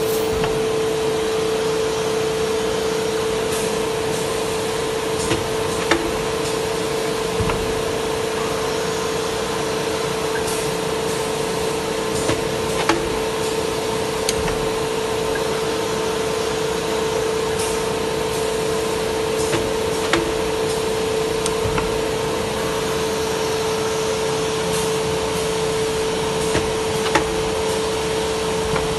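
CNC router at work on a board: the spindle whines at one steady pitch over the even rushing of the dust extraction, with a few sharp clicks scattered through.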